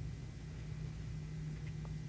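Low steady hum with faint background hiss: room tone, with a faint tick or two near the end.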